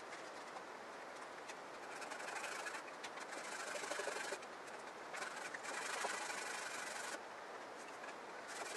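Sandpaper wrapped around a socket rubbing back and forth inside a fiberglass composite rifle stock's barrel channel, sanding the channel out to clear the barrel. It rasps in spells of about two seconds, starting about two seconds in, with a pause in between.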